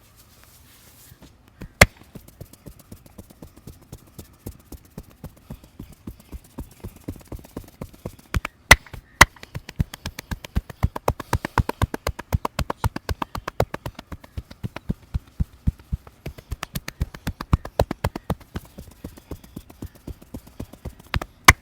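Hands rhythmically tapping and slapping a client's body in a percussive massage, in a fast even run. A few much louder single slaps or claps stand out from it.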